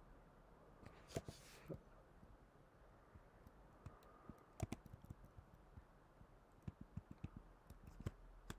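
Faint, scattered keystrokes on a computer keyboard: a few separate taps, then a quicker run of keys near the end.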